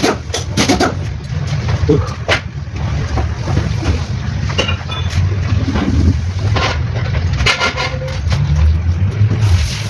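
Mitsubishi 4M40 diesel engine running with a steady low rumble, and several sharp, irregular knocks in the first two seconds or so.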